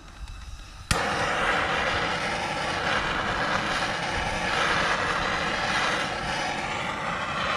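Handheld gas torch lighting with a sudden start about a second in, then burning with a steady loud rushing hiss. The flame is heating a rusted-in rear wheel hub bearing to break it loose.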